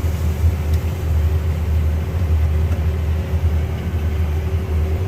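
Steady low drone inside a combine cab as it harvests corn: the engine and threshing machinery running, with a faint steady whine above it.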